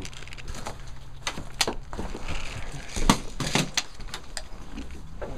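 Footsteps and scuffs on a debris-strewn wooden floor, with several sharp knocks of gear against wooden boards.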